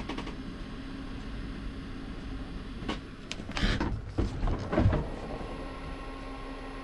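VEVOR 45-litre 12/230 V compressor cooler-freezer running just after switch-on, its compressor and cooling fan making a steady, quiet hum with a low tone, "really light". A few handling knocks and rustles come between about 3 and 5 seconds in.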